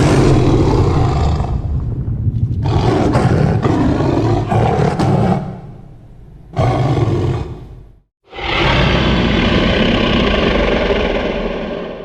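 Designed monster growl sound effects for a gryphon creature: four growling roars in a row with short gaps between them, the last fading out near the end.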